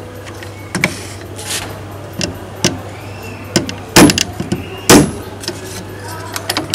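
Hammer striking small nails into thin wooden trellis strips: two loud blows about a second apart in the second half, with lighter taps and clicks before them.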